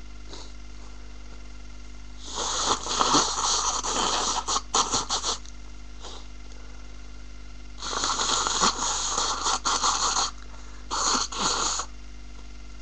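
A person with a congested head cold making three bouts of loud, breathy nasal noise: the first about two seconds in and lasting about three seconds, the second about eight seconds in, and a short one near the end.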